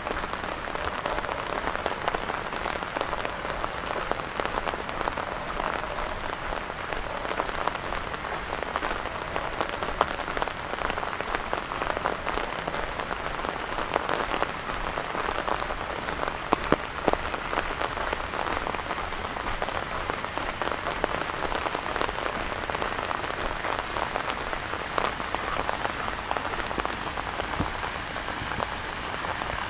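Steady rain falling: a dense, even hiss of drops with scattered sharper drip ticks.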